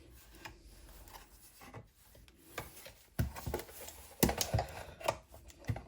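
Plastic parts of a Pure Siesta Rise DAB radio being handled and pulled apart: soft rubbing at first, then a handful of sharp clicks and knocks from about three seconds in.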